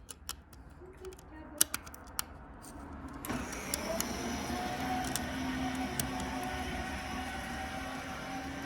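A few sharp clicks of tools on screws, then about three seconds in a small electric motor starts and runs steadily: a power drill spinning screws loose.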